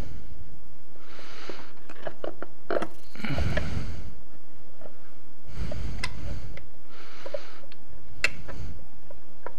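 A person breathing heavily through the nose close to the microphone, about five breaths, with light clicks and knocks of metal parts being handled while fitting the engine's side cover.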